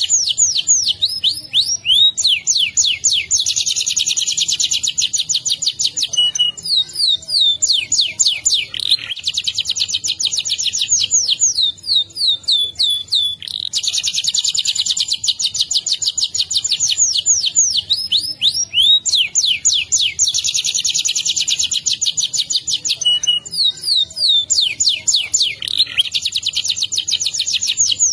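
Domestic canary singing a long, continuous rolling song ('ngerol'): fast trills and runs of rapidly repeated sweeping notes, high-pitched and loud, with only brief breaks. The same passage comes round again about every 15 seconds.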